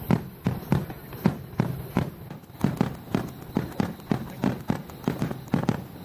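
Fireworks bursting in a rapid barrage: sharp bangs with deep thuds, about three a second.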